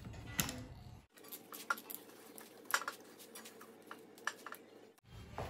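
Irregular light clicks and clinks of hands handling and working on the metal handlebar and stem of an electric scooter, with a faint low hum in the first second.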